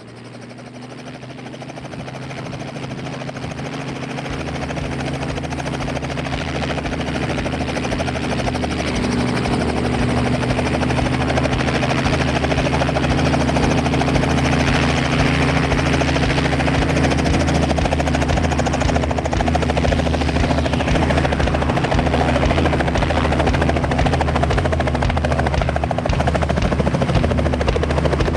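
Robinson R44 helicopter running, its piston engine and rotor growing louder over the first ten seconds, then holding steady.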